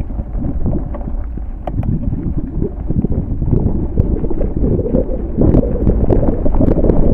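Wind buffeting the microphone: a loud, low rumbling noise throughout, with a few scattered clicks.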